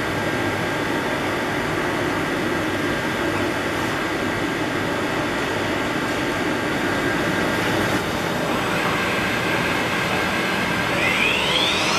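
DIXI milling-drilling machine running with a steady mechanical hum and a faint whine. About 11 seconds in, a whine rises steeply in pitch and settles on a higher tone as the spindle spins up to speed.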